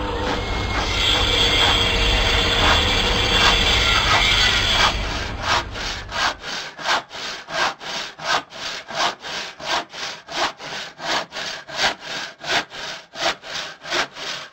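A hand saw cutting wood in steady back-and-forth strokes, a little over two strokes a second. For the first five seconds a louder, continuous noise with a low rumble runs before the strokes take over.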